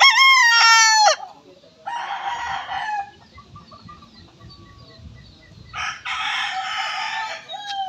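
Roosters crowing: a loud, clear crow right at the start, then two rougher-sounding crows about two seconds and six seconds in, each a little over a second long.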